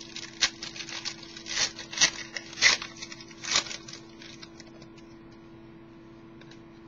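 Football trading cards and their packaging being handled: a run of crinkling rustles and sharp clicks for about four seconds, then only a faint steady low hum.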